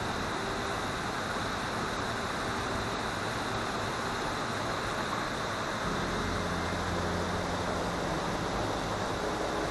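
A vehicle on the move: steady road and engine noise, with a low engine hum growing stronger about six seconds in.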